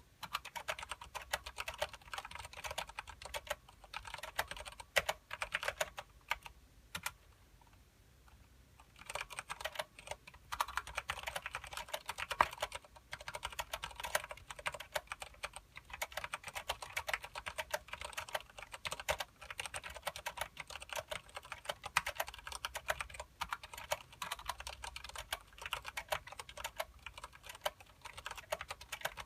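Continuous typing on a KBParadise V60 mechanical keyboard with Cherry MX Clear switches and thick PBT keycaps: fast, irregular key clicks, with a pause of about two seconds roughly a quarter of the way in.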